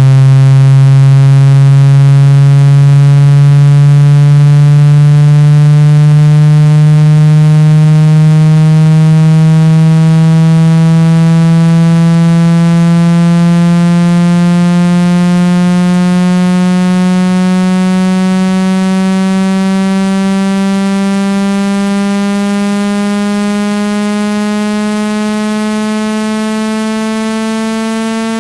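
A synthesized speaker-cleaning buzz tone, rich in overtones, sweeps slowly and steadily upward in pitch while gradually getting quieter. It is a low frequency sweep meant to vibrate a phone speaker's membrane and push out trapped water and dust.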